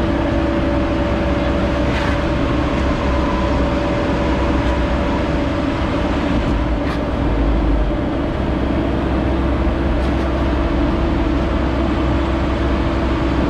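Cat 308 mini excavator's diesel engine running steadily: a low rumble with a steady droning tone over it and a couple of faint ticks.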